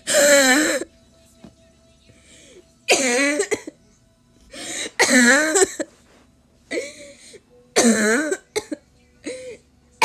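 A person coughing hard in repeated fits, broken up with wheezing laughter. There are about six bursts, the longest and loudest at the start, around three and five seconds in, and around eight seconds in.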